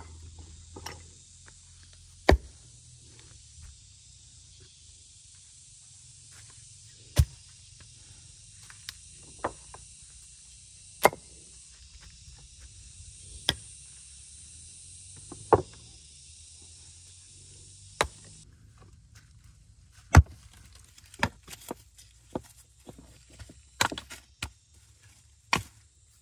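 Sharp single strikes of a hand tool at work, one every two to five seconds, with quicker, lighter knocks over the last few seconds; the loudest strike comes about twenty seconds in. Under them runs a steady high hiss that cuts off suddenly about two-thirds of the way through.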